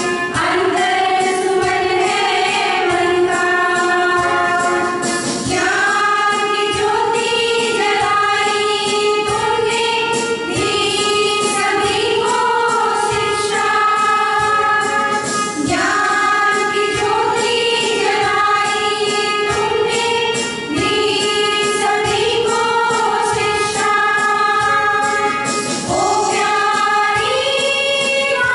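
Women's choir singing a Christian worship song in unison, accompanied by an electronic keyboard playing a steady beat.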